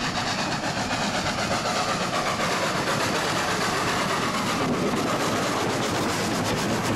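LNER A4 Pacific steam locomotive No. 4464 passing close by under steam: a fast, even beat of exhaust from its three cylinders mixed with the clatter of its wheels on the rails, the sound holding steady as it goes by.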